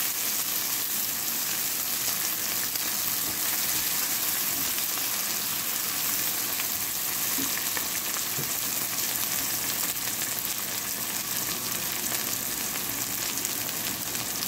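Shrimp, onion, tomato and green chilies frying in hot oil in a pan: a steady sizzle with fine crackling.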